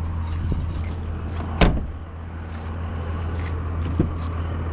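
A car door on a 2011 Chevrolet Equinox clunks open with one sharp knock about a second and a half in, followed by a lighter click near the end, over a steady low hum.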